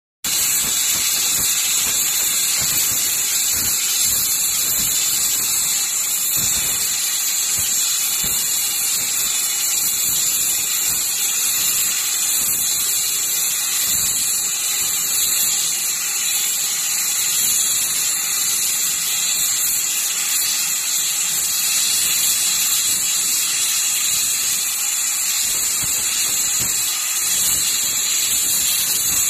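LGK-300IGBT air plasma torch cutting through a thick steel pipe: a loud, steady, high-pitched hiss of the arc and cutting air that stays even without a break.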